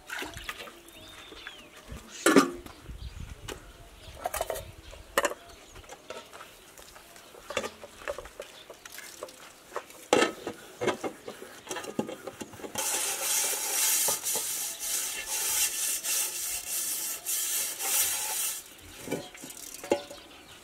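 Metal dishes, pot lids and pans clinking and knocking as they are washed by hand. In the second half there are several seconds of steady washing noise.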